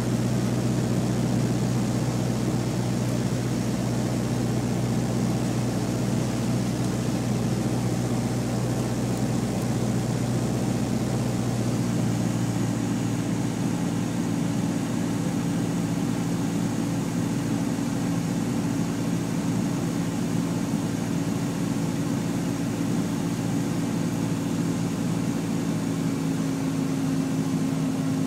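Mooney M20F's four-cylinder Lycoming IO-360 engine and propeller droning steadily, heard from inside the cockpit on final approach to landing. The engine's note shifts about twelve seconds in, and slightly again near the end.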